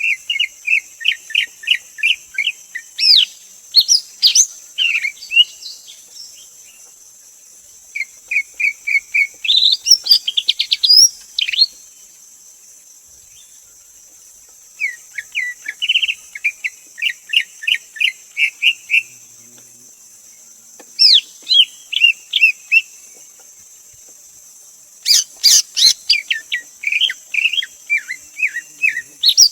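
Greater green leafbird singing: bouts of rapid, repeated chirping notes mixed with sharp up-sweeping whistles, coming in five bursts with short pauses between them. A steady high-pitched hiss runs underneath.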